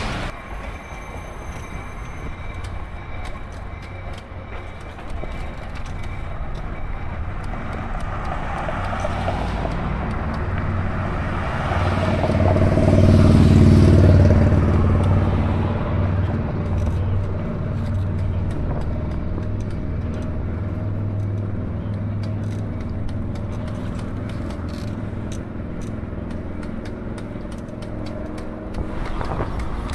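City road traffic with a steady low rumble. One vehicle grows louder and passes, loudest about thirteen to fourteen seconds in.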